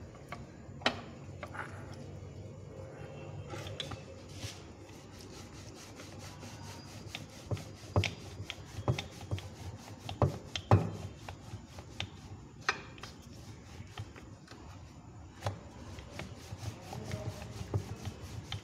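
Wooden rolling pin rolling dough out on a wooden board: a steady low rubbing rumble, with a few sharp knocks scattered through it.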